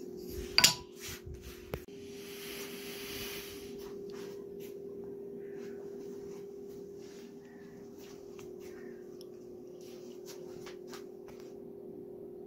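Angle grinder motor running with a steady hum, with a sharp knock about half a second in, a brief rubbing hiss soon after, and light clicks.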